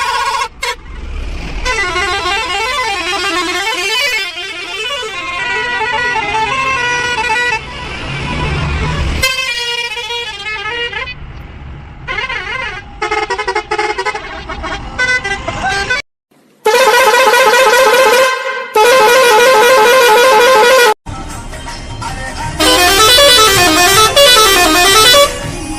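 Bus horn sounding in a series of long blasts whose pitch warbles up and down like a tune. The loudest blasts come in the second half, starting and stopping abruptly.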